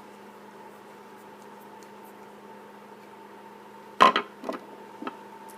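Steady hum, then about four seconds in a sharp metallic clack followed by two lighter clicks: a screwdriver and small metal parts of a mechanical e-cig mod knocking on a hard surface.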